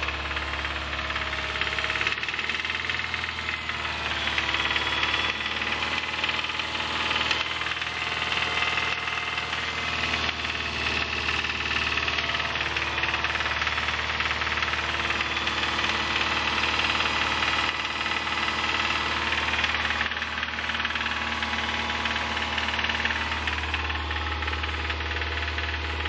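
2005 Subaru Impreza 2.5RS flat-four engine running with a rod knock, caused by a worn number-one connecting-rod bearing that a teardown later confirmed.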